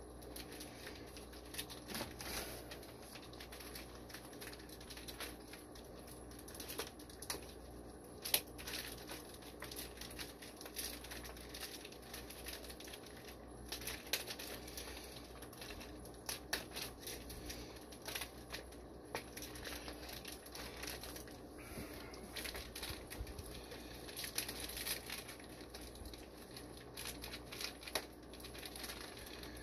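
Plastic fish shipping bags crinkling and rustling as they are handled, with irregular sharp crackles throughout.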